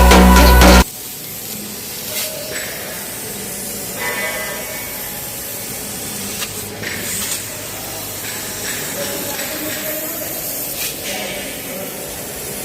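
Loud music cuts off just under a second in, leaving the steady hiss of a CNC laser cutter's gas jet cutting thick steel plate, with a few small crackles and faint voices in the background.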